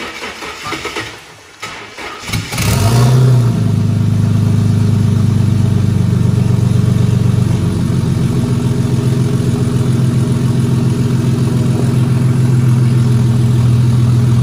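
Turbocharged Ford AU Falcon engine being cranked over by the starter, catching about two and a half seconds in with a short flare of revs, then settling into a steady idle. This is the first start after the turbo install, and the exhaust leaves through a short pipe straight off the turbo and up through the bonnet.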